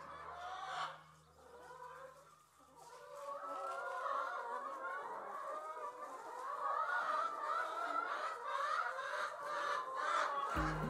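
A flock of brown laying hens clucking, many overlapping calls, growing louder about three seconds in.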